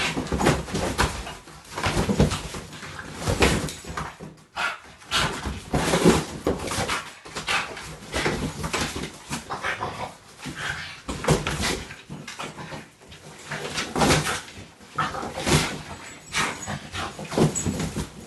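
French bulldog ripping and chewing a cardboard box: repeated, irregular tearing and crumpling of cardboard, mixed with the dog's own vocal noises.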